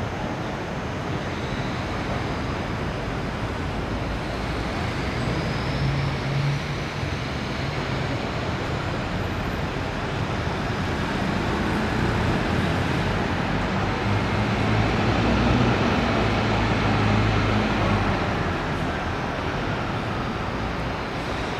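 NABI 40-LFW transit bus with a Detroit Diesel Series 50 inline-four diesel running as it drives toward the listener, over steady traffic noise. It grows louder as the bus approaches and is loudest a few seconds before the end.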